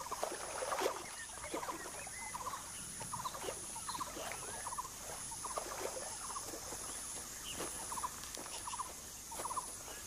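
Wetland wildlife ambience: many short chirps and rapid trills from small animals, over a high insect buzz that pulses steadily.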